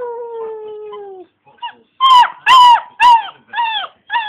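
German Shepherd puppy howling: one long falling howl lasting a little over a second, then from about two seconds in a run of four or five shorter, louder, higher yelping howl notes.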